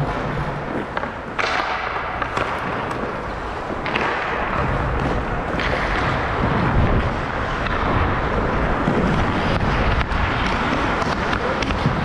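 Ice skate blades scraping and carving on the rink, with scattered clicks of sticks on the puck, under a steady rush of wind buffeting a camera microphone worn by a moving skater.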